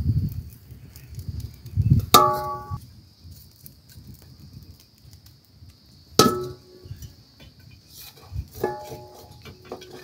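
Metal cooking utensils clanging three times: a sharp clang about two seconds in, another near the middle and a softer one near the end, each ringing briefly with several tones. Between them an open wood fire crackles as singed sheep's head and trotters are held in it with tongs and scraped with a knife.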